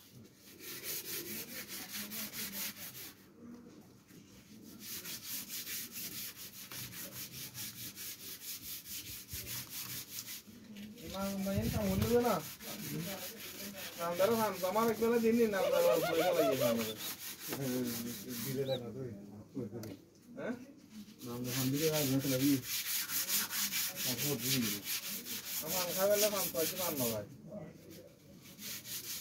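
A hissy, rasping scraping noise that starts and stops several times.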